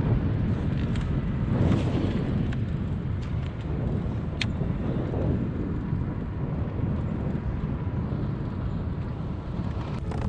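Steady rushing of wind buffeting an action camera's microphone out on open water, with one short high chirp about four seconds in.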